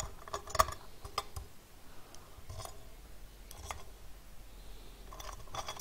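V-wheels and small hardware being slid onto cap screws on a CNC gantry plate: a handful of light, irregular clicks and taps, the loudest about half a second in.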